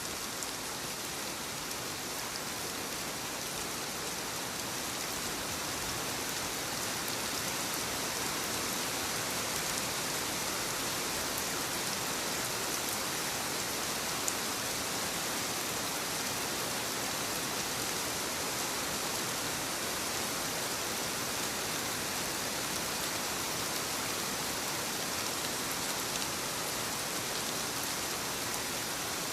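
Steady rainfall, a dense even hiss of raindrops with its brightest part high up. A single faint drop-like tick stands out about halfway through.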